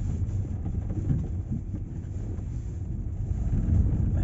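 Camper van driving over a rough, potholed road, heard from inside the cab: a steady low rumble of engine and tyres jolting over the broken surface.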